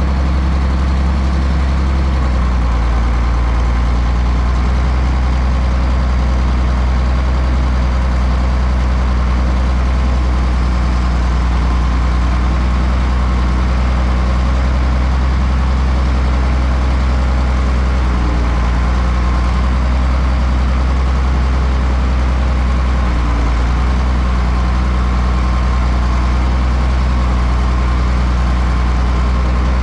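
Heavy farm-machinery engine running steadily with a constant low hum; the tone shifts slightly about two seconds in.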